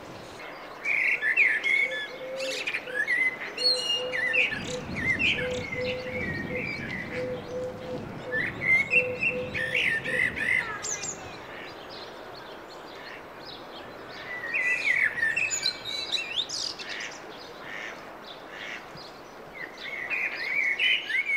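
Mallard ducklings peeping in bursts of quick, high chirps, several times over. Under the first half runs a soft low note repeated about twice a second, which stops about ten seconds in.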